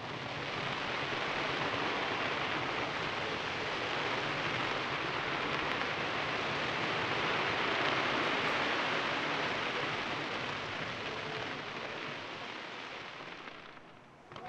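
Crackling of a massed fireworks barrage: a dense, steady crackle with no separate booms. It builds over the first second or two, is strongest about eight seconds in, and dies away near the end.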